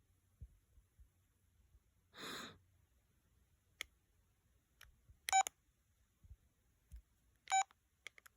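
LG VX6100 flip phone keypad beeps as menu keys are pressed: two short beeps, about five and seven and a half seconds in. A soft breath and a few faint clicks come before them.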